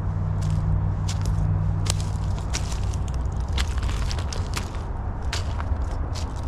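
Footsteps crunching and scraping on loose gravel ballast as someone climbs a railway embankment, in irregular steps. A steady low rumble sits under the first two seconds or so.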